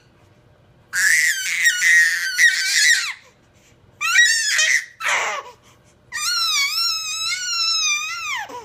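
A baby girl squealing at the top of her voice in very high-pitched bursts. A long squeal comes about a second in, two short ones follow around four and five seconds, and a long one starts at about six seconds and drops in pitch at its end. This is vocal play by a baby who has discovered her voice, not crying.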